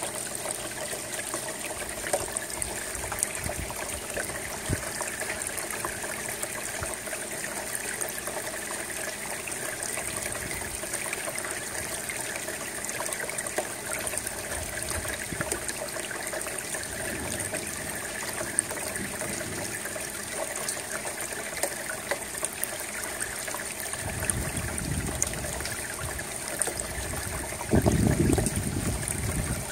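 Steady rain, with runoff dripping and trickling off the edge of an asphalt-shingle roof and splashing into standing water below, full of small drip ticks. A brief low rumble comes near the end.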